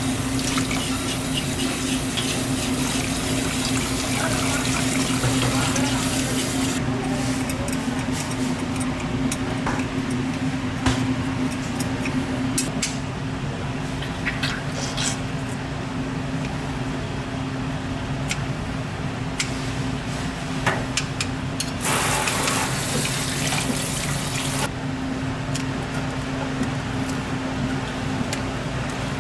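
Tap water running into a sink, for the first several seconds and again briefly about 22 seconds in, with scattered clicks and knocks of handling in between. A steady low hum runs underneath.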